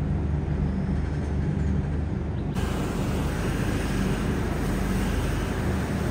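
Passenger train rolling slowly through a station, a steady low rumble heard from inside the coach. The sound turns brighter and hissier about two and a half seconds in.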